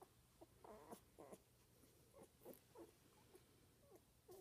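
Faint squeaks and whimpers from two-week-old puppies: several short, high little cries spread over a few seconds.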